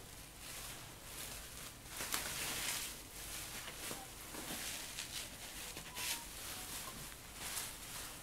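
Bubble wrap and plastic packing rustling and crinkling as it is pulled about by hand, in soft irregular bursts with a few small clicks.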